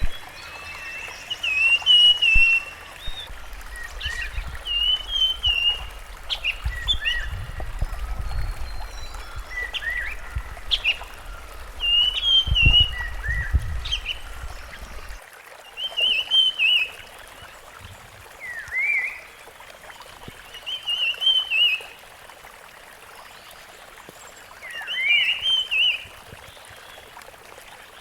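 Rusty-fronted Barwing singing: short, warbling phrases repeated every few seconds, mixed with sharp single chips. A low rumble underneath stops abruptly about halfway through.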